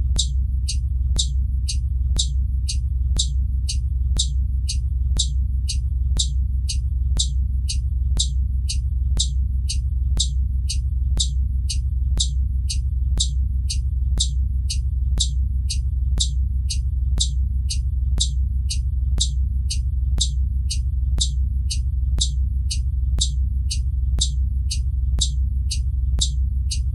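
Blue Bird Vision school bus turn signal flasher clicking in an even tick-tock, about two clicks a second, over a steady low rumble.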